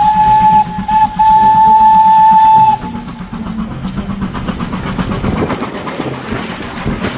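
Steam whistle of a full-size Thomas the Tank Engine locomotive sounding two short toots and one long blast on a single steady pitch. After that the train runs on with a fast, even chugging rhythm.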